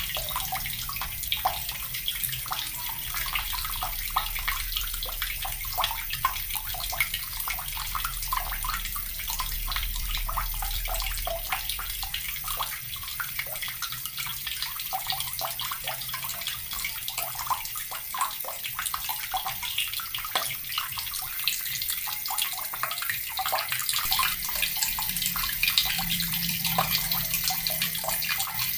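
Water from a tap running into a bucket: a steady, splashing stream of water falling into water.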